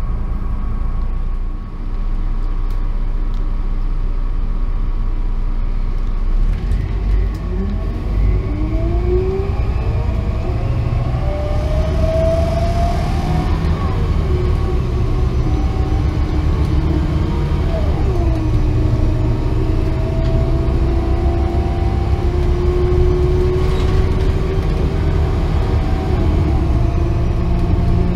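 Mercedes-Benz O500LE bus's turbocharged 12-litre inline-six CNG engine with its ZF Ecomat six-speed automatic, heard from inside the passenger cabin. Under a steady low rumble, the bus pulls away and accelerates with a whine rising in pitch. The pitch drops at two gear changes, then holds steady as the bus cruises.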